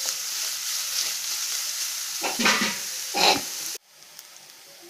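Chopped onion, green chillies and curry leaves sizzling in hot oil in a frying pan while being stirred, with two louder scrapes of the spatula against the pan a little past the middle. The sizzle cuts off abruptly near the end.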